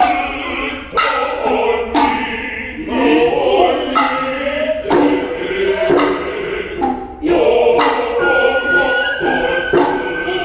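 Noh music: the chorus chanting in unison, punctuated about every one to two seconds by sharp strikes on the ōtsuzumi hip drum and kotsuzumi shoulder drum. A high, steady nōkan flute note comes in about eight seconds in.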